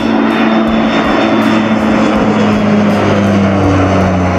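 CASA/IPTN CN-235 twin-turboprop transport aircraft flying past: a steady drone of turboprop engines and propellers with a low hum, its pitch dropping slightly near the end.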